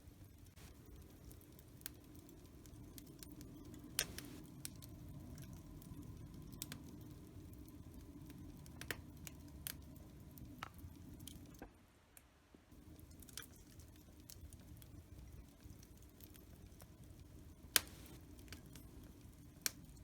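Wood fire burning in a fireplace: a low steady rumble of flames with scattered sharp crackles and pops, the loudest about four seconds in and near the end.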